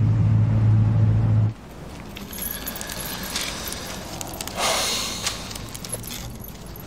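A steady low hum cuts off abruptly about a second and a half in. Then a thin gold neck chain jingles and clinks softly as it is handled, with a brief rustle about five seconds in.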